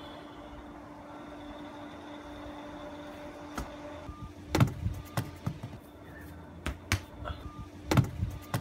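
A soccer ball kicked barefoot and thudding into a plastic rubbish bin: a few sharp thumps, the loudest about four and a half seconds in and again about eight seconds in, over a steady background hum.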